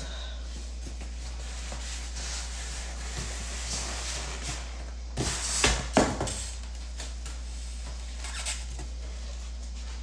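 Unpacking and handling noise as a microwave is taken out of its box: a few sharp knocks and rustles about five to six seconds in, over a steady low hum.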